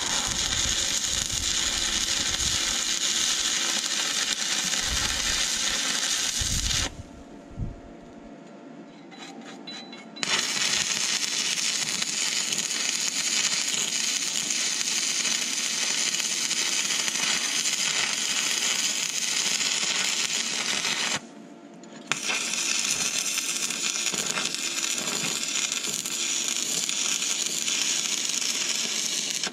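Stick welding arc crackling steadily on steel, in three runs. It stops about 7 seconds in, starts again about 3 seconds later, and pauses for under a second again near 21 seconds.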